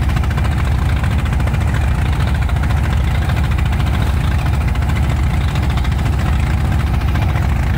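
Engine of a wooden motor boat running steadily while underway, a low, even drone under a wash of water noise.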